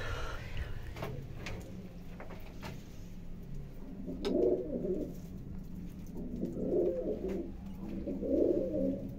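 Domestic pigeons cooing: three low coos about two seconds apart, starting a little under halfway through.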